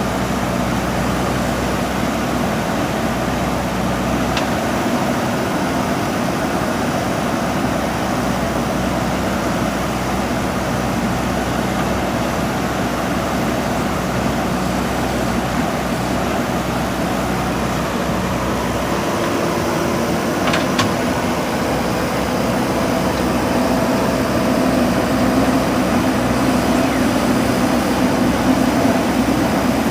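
JCB backhoe loader's diesel engine running steadily as the machine works, getting a little louder over the last few seconds. Two brief high clicks, one about four seconds in and one about two-thirds of the way through.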